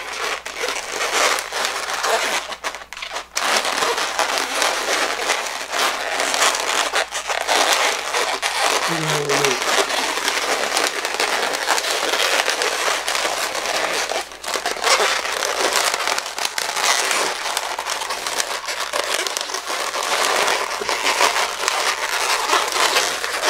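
Latex twisting balloon being twisted and worked by hand: continuous rubbery squeaking and crackling as the inflated latex rubs against itself and the fingers.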